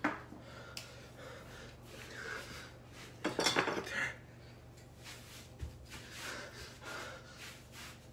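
Clinking and clattering of small objects being handled, irregular, with a louder clatter a little past three seconds in, over a steady low hum.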